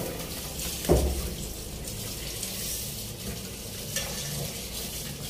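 Tap water running into a steel pot of rice in a stainless steel sink while a hand swirls the grains to wash them. A dull knock sounds about a second in.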